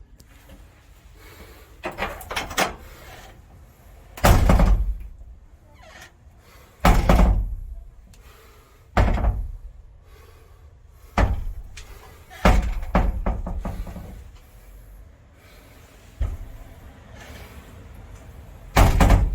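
Front entrance door being swung shut and slammed against its frame again and again, about eight heavy thuds a couple of seconds apart, some with a quick double hit.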